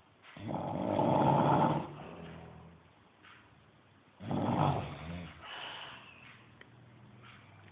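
Snoring: two loud snores, the first about half a second in and lasting over a second, the second about four seconds in and shorter.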